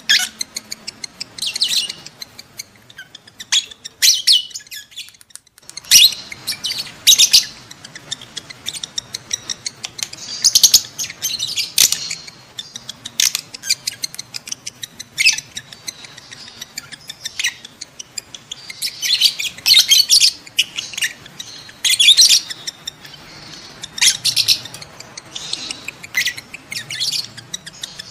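Peach-faced lovebirds chattering: rapid, shrill chirps and squeaks in irregular bursts, with a short lull about five seconds in. These are lovebird courtship calls from birds in breeding condition.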